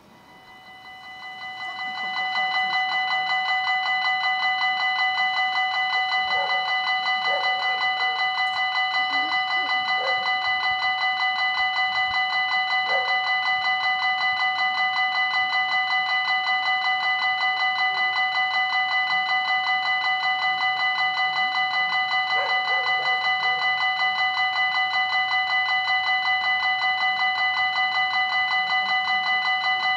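Belgian level crossing's electronic warning bell switching on, swelling over the first two seconds and then ringing steadily with a fast, even pulse, signalling an approaching train.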